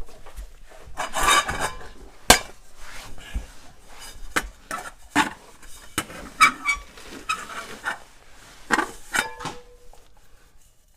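Irregular light metallic clinks and knocks with rustling, from handling wiring and parts under the Jeep.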